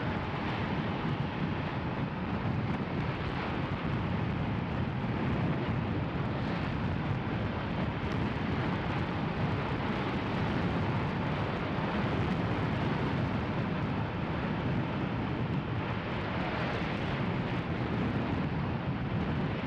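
Steady wind rush and motorcycle riding noise at about 60 km/h, picked up by an action camera inside a modified waterproof case that is meant to suppress wind noise.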